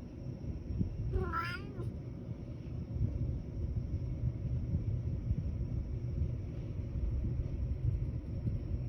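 A domestic cat gives one short meow, rising then falling, about a second in, over a steady low rumble.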